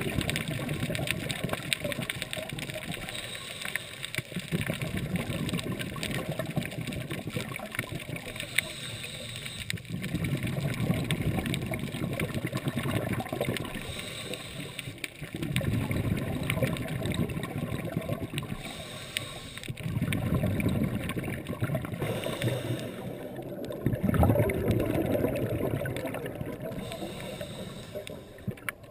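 Scuba regulator breathing heard underwater through a GoPro dive housing: exhaled bubbles rush out in a muffled swell about every four to five seconds, with a constant crackle of small clicks in between.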